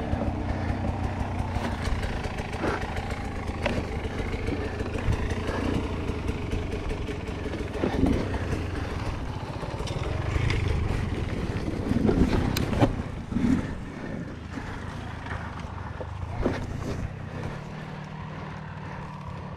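GasGas enduro dirt bike engine running at a steady idle while the bike lies on its side and is pulled upright, with scattered knocks and clatter from the handling. The idle rises a little near the end.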